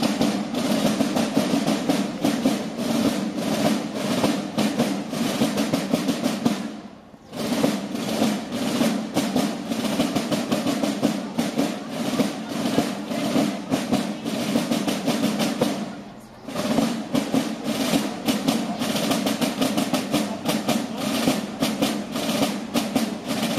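A corps of parade drummers playing rope-tensioned side drums in fast rolls and strokes, with two short breaks about seven and sixteen seconds in.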